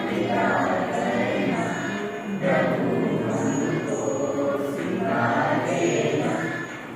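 A choir of students singing together in unison, in phrases a couple of seconds long, with a brief dip in level near the end.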